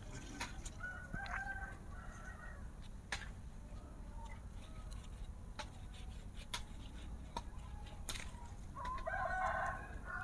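A rooster crows about nine seconds in, with a shorter chicken call about a second in. Under it, light clicks of a small knife trimming a young avocado scion for grafting.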